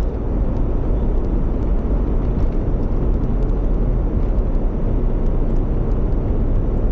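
Steady low rumble of a taxi driving along a road: engine, tyre and wind noise, even throughout with no change in pace.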